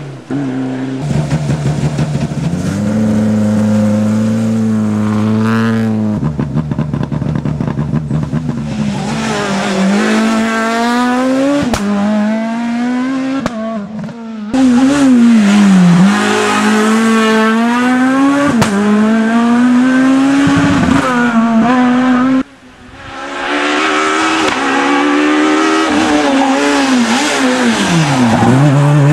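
Rally cars racing past one after another on a tarmac special stage, their engines revving hard, climbing in pitch and dropping back at each gear change. There are abrupt changes between passes, and the last car is a Renault Clio rally car.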